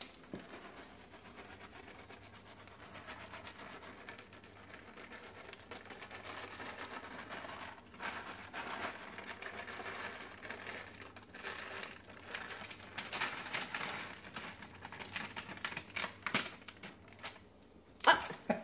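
A plastic bag of shredded cheese crinkling as it is shaken and squeezed while the cheese pours out. The crackling grows denser and crisper in the second half.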